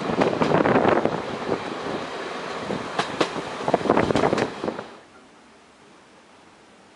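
A train running by, the noise of its passage broken by irregular sharp clanks and knocks. It drops away abruptly about five seconds in, leaving only a faint hiss.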